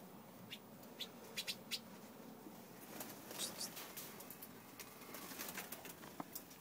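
Gouldian finches giving scattered short, high chirps, a dozen or so, bunched into quick runs.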